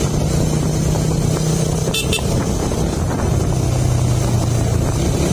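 Motorcycle engine running steadily under way, with wind and road noise, and a quick double horn beep about two seconds in. The engine note drops a little around three seconds in as the throttle eases.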